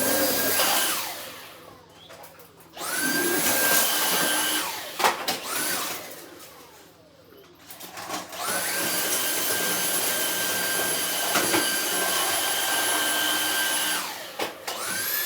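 Cordless Dyson stick vacuum run in bursts on its trigger: each time the motor whines up to speed, runs with a steady high whine and rushing airflow, then winds down. It starts five times; the longest run lasts about six seconds.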